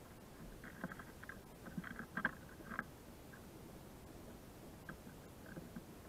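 A small bird pecking at food on a frozen log: a quick run of light taps in the first three seconds, the loudest about two seconds in, and a few fainter taps near the end.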